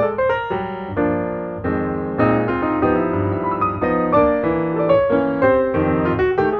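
Background piano music: a steady run of sustained notes and chords.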